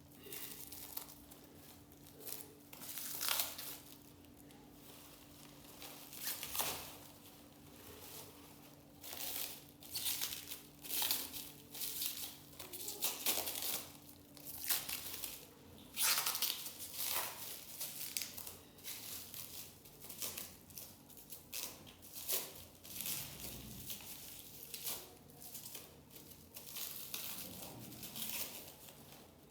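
Plastic packaging crinkling and rustling as it is handled and unwrapped, in irregular bursts a second or so apart.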